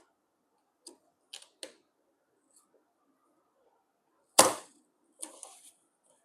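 Scaler board being pried off an LED TV panel: a few light clicks, then one sharp snap about four seconds in, followed by a brief crackle as the stuck board comes free.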